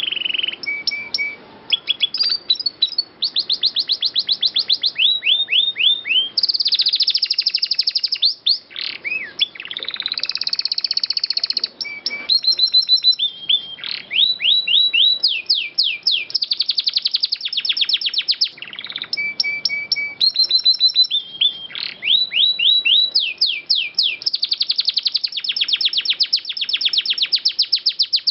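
Domestic canary singing a long, unbroken song of rapid trills and rolls: fast runs of repeated high notes, some sweeping downward, changing from one run to the next every second or two.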